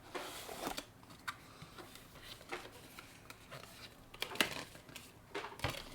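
Scattered light taps, clicks and rustles of a cardboard booster box and its packaging being handled, with a sharper click about four seconds in.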